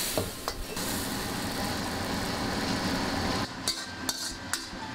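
Pork kidney and vegetables flash-frying in a wok over a high gas flame: a steady roar of burner and sizzling oil, with a couple of knocks of the metal spatula against the wok. About three and a half seconds in this gives way to several sharp clinks and scrapes as the spatula turns the food out of the wok onto a plate.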